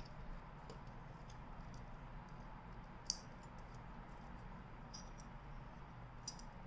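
Faint clicks and taps of a Bandai 1/60 high-grade M9D Falke plastic model kit's parts being handled and fitted together, the sharpest click about three seconds in, over a steady low hum.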